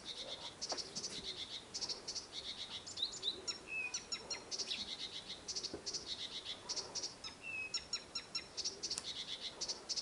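Nightingale singing a continuous, rapid song of high, fast-repeated notes and trills, with a few short clear whistles mixed in.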